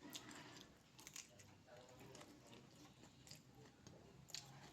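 Faint chewing and mouth sounds of a person eating curry and rice, with soft wet clicks scattered through.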